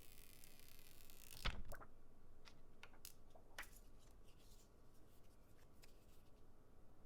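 Quiet handling sounds: one short knock about a second and a half in, then a few light clicks and taps, as from a phone or its case being handled on a desk.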